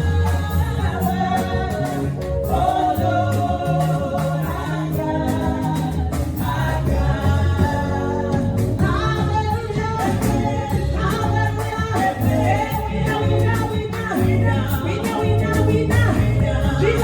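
Gospel worship song: voices singing over a band with a pulsing bass and drums keeping a steady beat.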